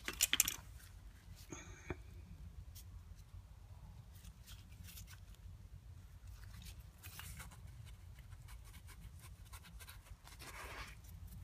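Pistons and connecting rods from a torn-down engine being handled by hand: a few light metallic clinks at the start and a short ringing tap near two seconds, then soft rustling and scraping as a gloved hand turns a piston and rod, over a steady low hum.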